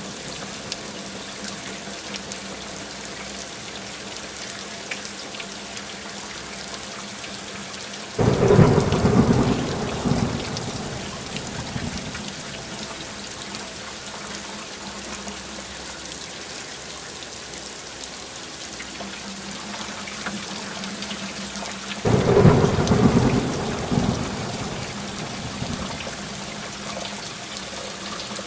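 Steady rain falling, with two loud rolls of thunder that start suddenly and fade over a couple of seconds, one about a third of the way in and another about three-quarters of the way in.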